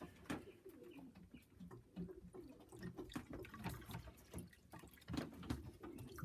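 Pigeons cooing faintly in a loft, with scattered light clicks and taps among them.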